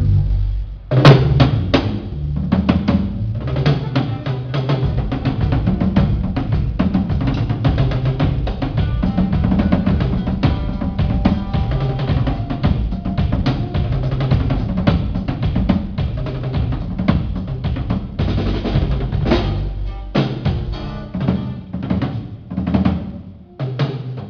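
A drum kit played at a band's sound check: fast, busy snare and bass-drum hits with rolls over low bass notes, thinning to separate hits near the end.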